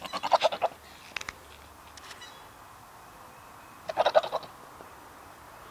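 A goat bleating twice, short quavering bleats made of rapid pulses, the first right at the start and the second about four seconds in.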